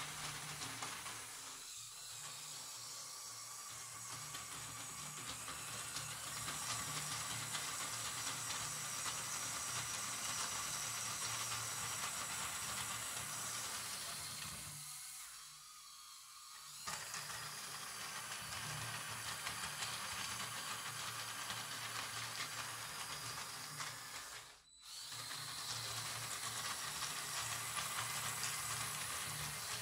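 The electric motors and gear drivetrain of a LEGO Technic 6x6 truck model running under load as its wheels churn through a pile of dried beans, with a dense clatter of small clicks. The sound drops away briefly twice, about halfway through and again near 25 seconds.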